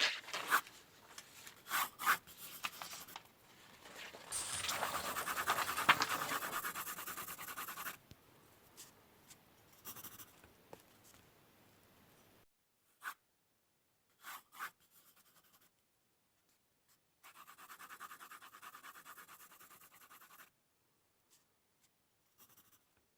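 A drawing tool scratching on paper in strokes: a few short strokes, then a long stretch of steady scratching for about four seconds, scattered lighter strokes, and another run of scratching for about three seconds near the end.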